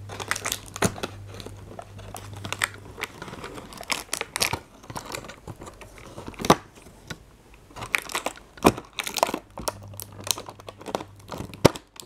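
Cardboard and paper crinkling and rustling in irregular handling noises, with small clicks and taps, as hands work at an opened cardboard advent-calendar door and lift out its contents.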